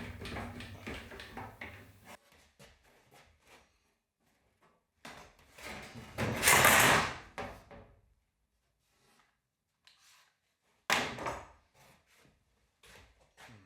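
Workshop handling noises: knocks and rattles of a wooden template and metal piece being moved and clamped, with a loud rush of noise lasting about a second near the middle and a sharp knock a few seconds later.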